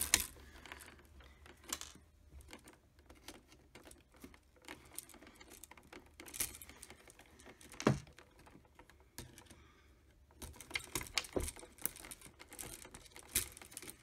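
Faint, irregular small clicks and snaps of metal: single-pole light switches being handled and their plaster ears bent off with electrician's pliers. A sharper snap comes right at the start and another just past halfway.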